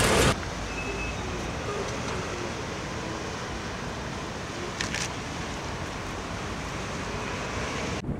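Steady outdoor background noise, an even rush with no distinct events, and one short tick about five seconds in.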